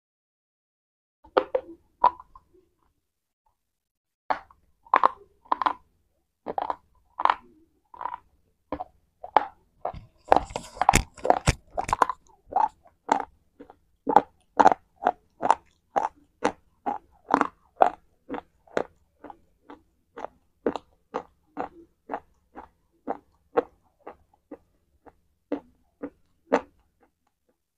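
Crunching bites and chews of a hard white chalk-like bar, picked up close on a clip-on microphone: two sharp bites about a second in, then steady crunching chews about two a second.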